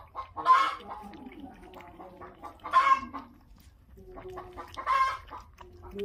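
Chickens clucking, with three loud, short squawks about two seconds apart, over the wet clicking of puppies lapping milk from a bowl.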